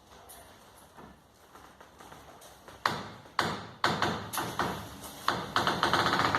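Low room tone, then from about three seconds in a quick run of sharp knocks and clattering taps, several a second, each with a short ring: hard objects being handled or struck.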